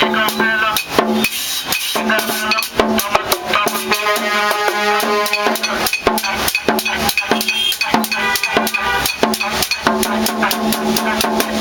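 One-man street percussion rig played with sticks: two small hand drums, a large rope-tuned double-headed drum and a metal güira struck in a fast, steady dance rhythm. A voice comes through a small horn loudspeaker over the beat at times.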